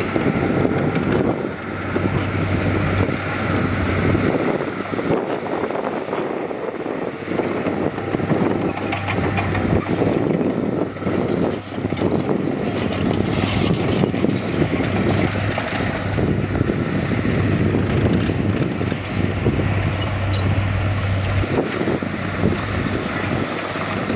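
Heavy diesel earthmoving machinery running and working, its engine note rising and easing in spells as the load changes, with wind buffeting the microphone.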